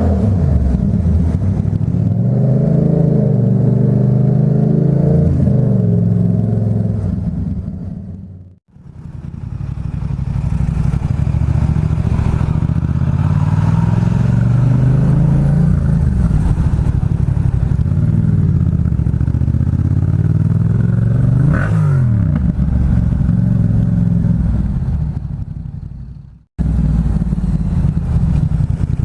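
Yamaha MT-07 parallel-twin engine with an aftermarket Black Widow exhaust, heard through a helmet microphone, running and revving up and down as the bike is ridden. The sound fades away and cuts back in twice, once about a third of the way in and once near the end.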